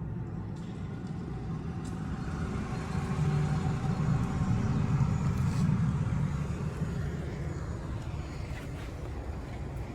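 A road vehicle passing by, its noise building to a peak in the middle and then fading away, over a steady low rumble.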